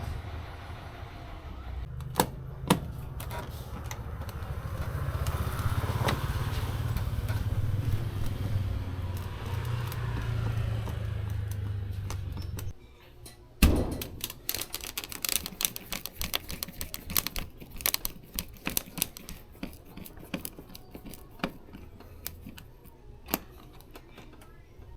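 A steady low hum cuts off suddenly about halfway through, followed by a sharp knock and then many small clicks and rattles of metal hardware being handled, like screws and fittings going into the fan.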